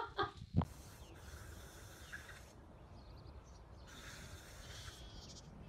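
Faint hissing noise in two stretches, the first nearly two seconds long and the second about a second long.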